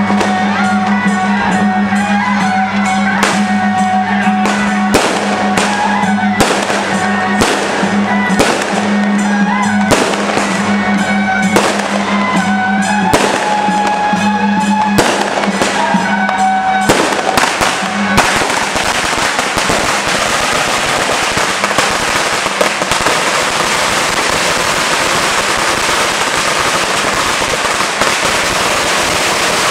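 Music with a held low note and a melody, broken by scattered sharp bangs every second or so. About two-thirds of the way through, a long string of firecrackers starts going off in one continuous, dense crackle that covers everything else.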